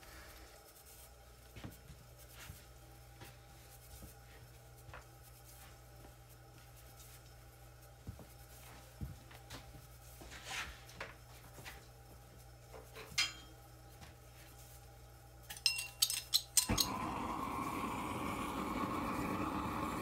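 Potter's wheel motor humming low and steady under a few faint taps. About three-quarters of the way in, a handheld gas torch clicks about five times as it is lit, then catches and burns with a steady rushing hiss, drying and firming the surface of the freshly thrown clay bottle on the turning wheel.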